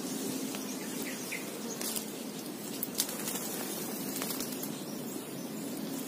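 Scattered short bird chirps and a few sharp clicks over a steady low background rumble; the sharpest click comes about three seconds in.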